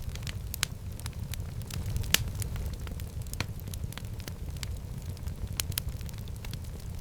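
Wood fire burning in a fireplace: a steady low rumble of flames with sharp, irregular pops and crackles, the loudest a little after two seconds in.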